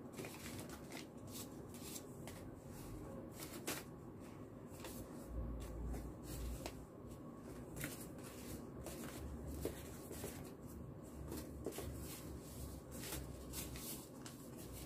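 Paper red envelopes being shuffled, sorted and laid down by hand: a faint, irregular run of papery rustles and light ticks.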